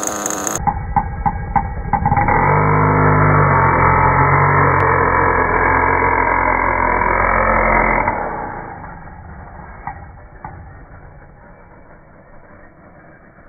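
Kyosho Inferno NEO ST 3.0's .25 glow-fuel engine revving hard as the 1/8-scale stadium truck spins its tyres and pulls away. A few sharp clicks come first, and about eight seconds in the engine note fades as the truck drives off.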